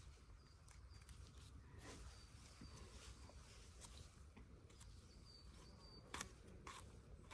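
Near silence: faint outdoor background with a few soft clicks and faint high chirps that come in pairs every couple of seconds.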